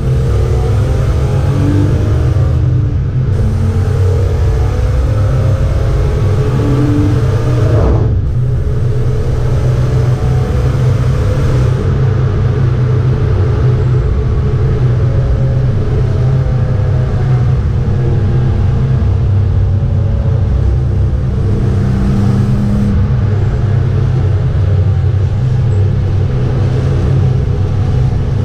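BMW 325 E36 straight-six engine running hard at track speed, heard from inside the cabin together with road and tyre noise. The engine note breaks briefly about eight seconds in, then carries on.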